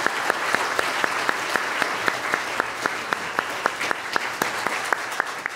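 Congregation applauding, with one nearby pair of hands clapping steadily about four times a second, standing out over the rest.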